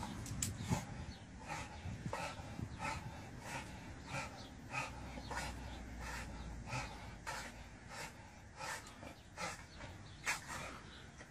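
A dog panting and huffing in short, regular bursts, a little more than one a second, while it jumps repeatedly at a tree.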